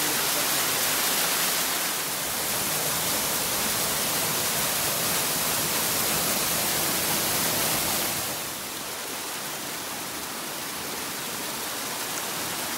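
Mountain stream and waterfall water rushing steadily in a rocky gorge, a little quieter from about eight seconds in.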